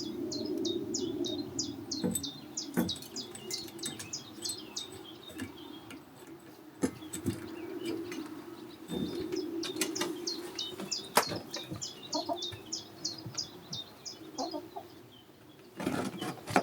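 A bird chirping rapidly and repeatedly, high-pitched, with scattered sharp knocks and fluttering as it flaps about, over a steady low hum.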